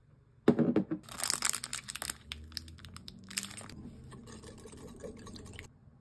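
A small metal whisk and a measuring spoon clinking and scraping against a glass mixing bowl as a liquid sauce is stirred. It starts with a sharp knock about half a second in, then a busy clatter, then softer stirring that stops just before the end.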